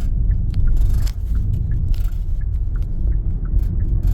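Car cabin noise while driving slowly: a steady low rumble of engine and road, with scattered light ticks and clicks.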